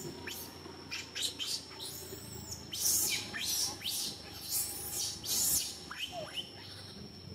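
Newborn macaque crying: a string of short, shrill squeals, each falling steeply in pitch, several a second, dying away about six seconds in.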